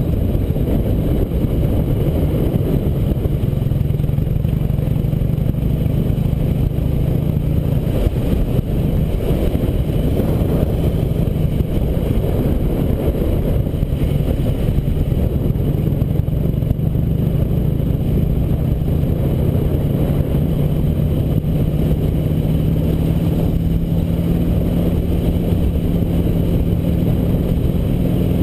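Harley-Davidson V-twin engine running steadily as the motorcycle cruises, with a dense low rumble under the engine note. The pitch creeps slightly higher over the last several seconds.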